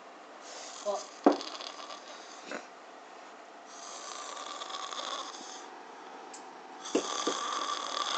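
A person snoring in long, rasping breaths, three of them about three seconds apart. There is a sharp click about a second in.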